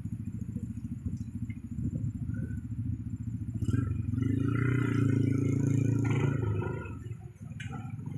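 Vehicle engines running in stalled traffic, a steady pulsing low drone. A louder engine swells close by from about four seconds in and fades away near seven seconds.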